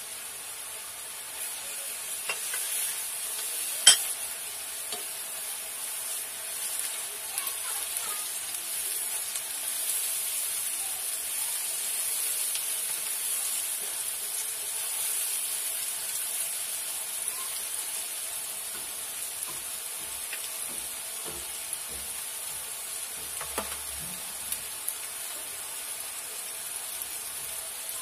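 Onions and freshly added ginger-garlic paste and spices frying in oil in a non-stick pan, sizzling steadily while a silicone spatula stirs them, with small scraping clicks. A single sharp tap about four seconds in is the loudest sound.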